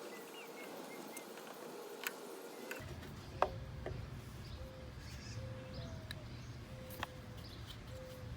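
Scattered light clicks and taps of hand tools working on a lawnmower, with faint short bird chirps in the background. A low rumble sets in about three seconds in.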